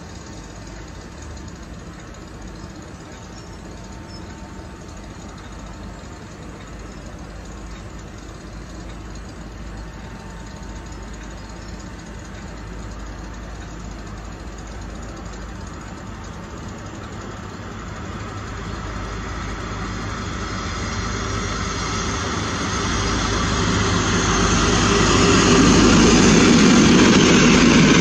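Class 43 HST diesel power car of Network Rail's yellow New Measurement Train approaching at speed. Its engine drone and the rail noise grow steadily louder, loudest over the last few seconds as the power car passes close by.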